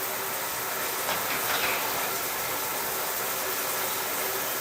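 Shower spray running steadily.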